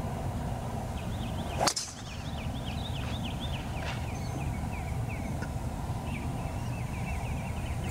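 Golf driver striking a ball off the tee: one sharp crack about two seconds in.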